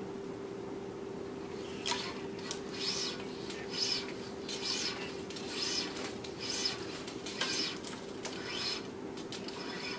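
Tennis string being drawn by hand through the racquet's strings while stringing it on a stringing machine: about eight quick swishing zips, roughly one a second, starting about two seconds in.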